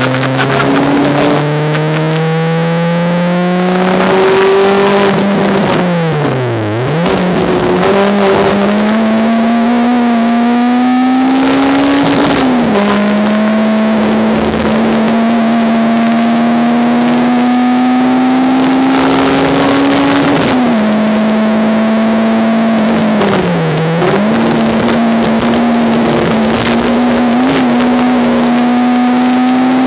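Honda Civic race car's engine heard from inside the car at full throttle, its pitch climbing steadily through each gear and dropping abruptly at each upshift. About six seconds in the revs fall sharply and climb back, as for a corner, and there is a shorter dip near the end.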